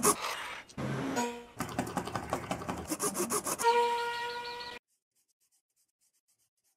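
Outdoor noise with rapid rattling and rushing, then a steady whine from a small RC plane's electric motor and propeller about four seconds in, cutting off suddenly about a second later.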